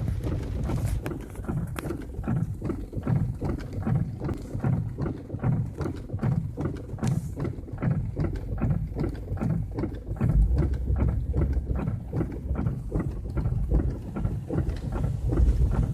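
Fast-flowing floodwater churning and splashing in an irregular, uneven rush, with wind buffeting the microphone and adding a low rumble from about ten seconds in.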